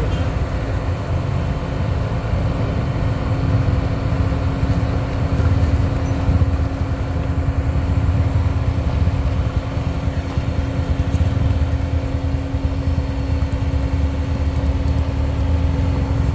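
Road traffic climbing a steep gravel hill: engines running with a steady drone and low rumble as cars, a van and motorcycles pass close by, with a truck climbing slowly behind them.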